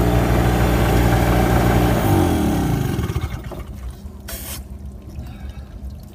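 Small portable generator's engine running steadily, then shut off about two seconds in, its note falling as it spins down. A short hiss follows about four seconds in.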